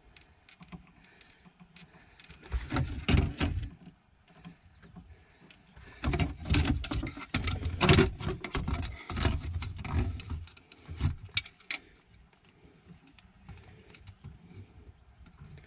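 Rustling and clicking of hands handling wires and small solderless connectors up close, in two bursts: a short one a few seconds in and a longer one from about six seconds, with a few scattered clicks later.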